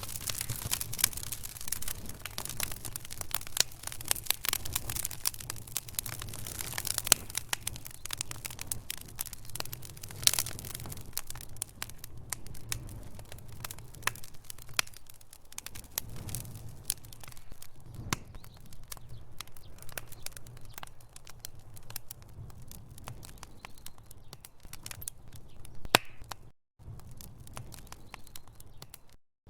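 Wood fire burning in a fireplace: frequent sharp crackles and pops over a low steady rumble of burning logs, the pops thinning out about halfway through. The sound cuts out completely for a moment twice near the end.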